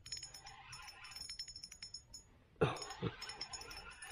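Light spinning reel clicking rapidly as line is cranked in against a freshly hooked fish. Two brief louder sounds with falling pitch break in about two and a half and three seconds in.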